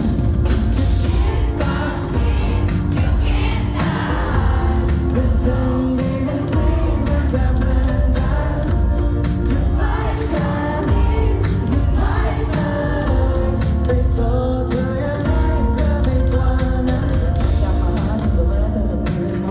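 Thai pop-rock band playing live: a male lead voice sings over heavy bass and a steady drum beat.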